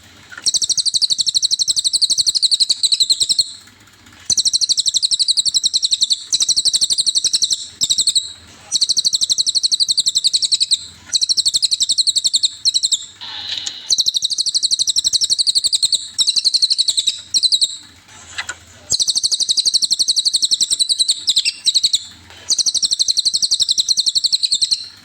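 Cililin (velvet-fronted nuthatch) singing in long, very rapid, high trills of a few seconds each, repeated with short breaks.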